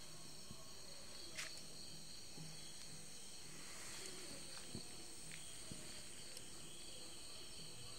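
Crickets trilling steadily at a high pitch, with a few faint clicks.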